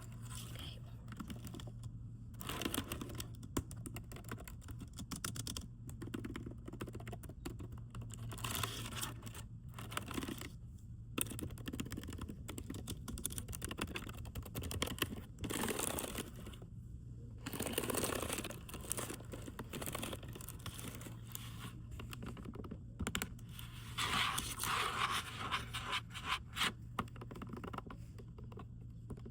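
Typing on a computer keyboard: dense runs of fast key clicks in bursts, broken by short pauses.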